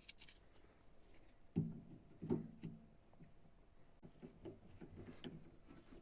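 Two soft thumps, about a second and a half and two and a quarter seconds in, then light irregular knocks and clicks.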